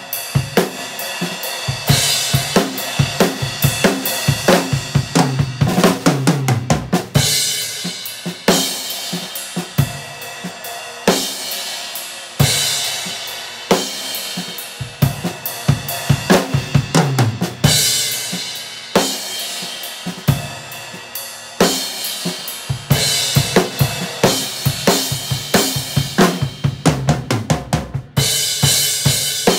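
Acoustic drum kit played in a steady groove: kick, snare and hi-hat, with tom fills leading into crash cymbal hits about every five seconds.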